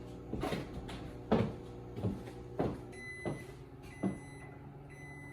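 Microwave oven running with a steady hum, and from about three seconds in sounding its high end-of-cycle beep about once a second, three times: the one-minute cooking time is up. A few light knocks and clatters come in the first few seconds.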